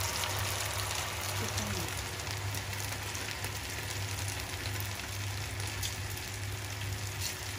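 Tempura-battered string beans deep-frying in a pan of hot oil: a steady crackling sizzle, with a low steady hum under it.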